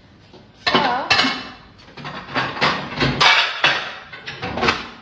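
Glass baking dishes clinking and knocking against each other as they are shifted and pulled out of a kitchen cupboard: a run of irregular sharp knocks with brief ringing, starting about a second in.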